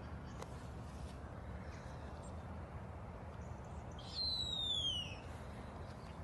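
Common raven giving a single high, whistle-like call that glides downward for about a second, about four seconds in.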